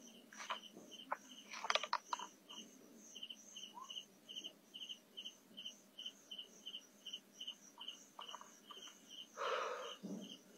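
Night insects, crickets, chirping in an even rhythm of about two to three pulses a second over a steady high trill. A few brief crackles of brush come in the first two seconds, and a short rustle near the end.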